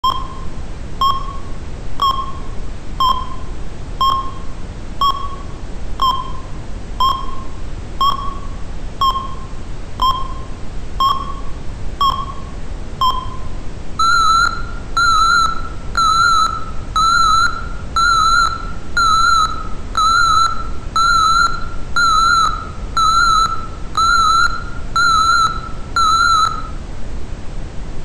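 Old, broken fire alarm beeping. For about the first half it gives short beeps about once a second. Then it switches to a higher, longer beep repeating a little faster, which stops shortly before the end, all over a steady hiss.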